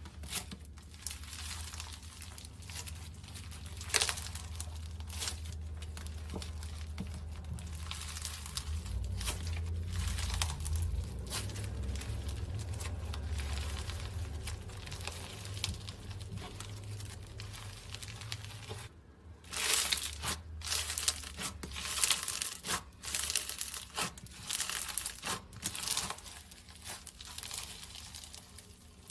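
Slime being squeezed and worked by hand, making crackly, crinkling sounds throughout. A low hum runs under the first two-thirds and stops about 19 seconds in, after which the crackles come sharper and louder.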